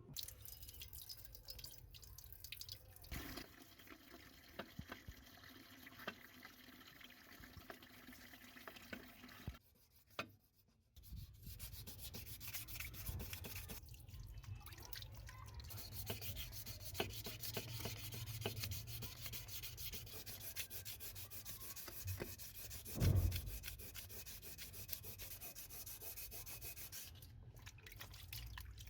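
Sanding of a pedestal fan part: a dense run of short, scratchy rubbing strokes, broken briefly about ten seconds in. A single low thump stands out about two-thirds of the way through.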